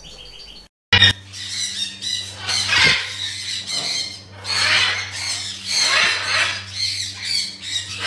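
A caged green macaw squawking: a series of loud calls, roughly one a second, starting about a second in, over a steady low hum.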